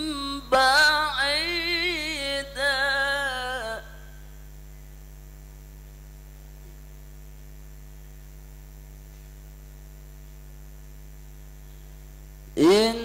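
A single voice chanting a drawn-out, wavering phrase of Arabic recitation for about four seconds. Then only a steady electrical mains hum is heard until the chanting starts again near the end.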